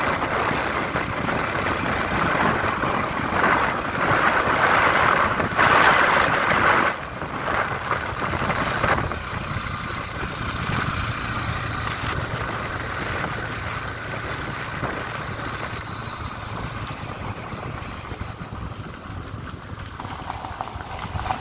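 A road vehicle's engine running while moving, mixed with wind rushing over the microphone. The sound drops noticeably in level about seven seconds in.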